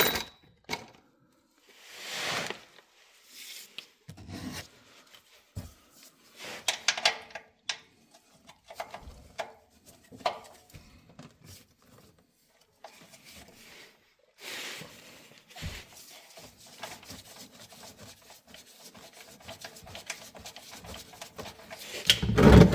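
Scattered rubbing, scraping and clicking of a socket and ratchet on the oil pan drain plug under the car, in short irregular bouts with pauses between.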